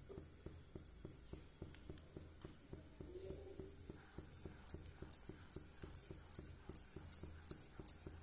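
Silicone spatula stirring milk thickened with custard powder in a pan, kept moving continuously so the custard doesn't form lumps. It gives a rhythmic scrape-and-tick about two to three times a second, louder with sharper ticks from about halfway.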